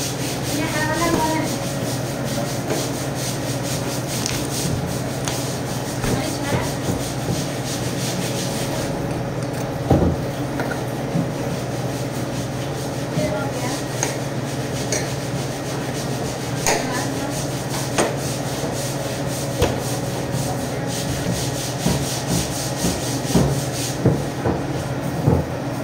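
Raw pork being handled and cut on a stainless-steel butcher's table: meat rubbing and sliding on the steel, with a few sharp knocks, over a steady low hum.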